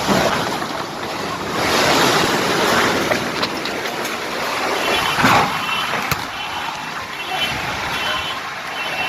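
Heavy rain and hail driven by strong wind: a loud, steady rushing that swells and eases, with one sharp tick about six seconds in.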